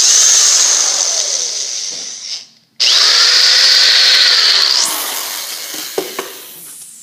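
Electric power drill widening a drilled hole in a wooden board, running in two bursts with a brief stop about two and a half seconds in; its motor pitch sags and recovers under load, and the second burst winds down and fades near the end.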